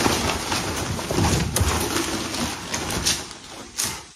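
A cardboard box being torn open by hand, with plastic packaging crackling: a dense rustle full of short sharp crackles that thins out near the end.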